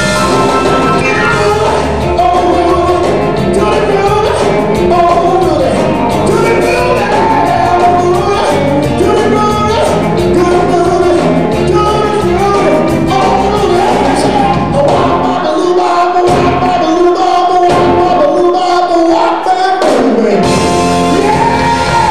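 Band music with a singer, full and loud; about two-thirds of the way through the bass and drums thin out for several seconds, then come back.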